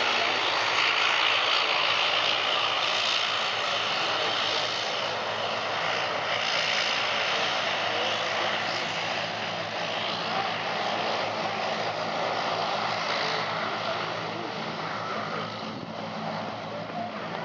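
Airbus A380-800 jet engines at takeoff thrust during the takeoff roll: a continuous rushing jet noise that holds steady and eases slightly near the end.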